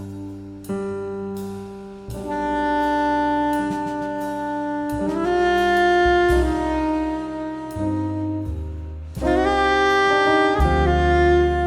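Jazz quartet: soprano saxophone playing a slow melody of long held notes over piano and double bass.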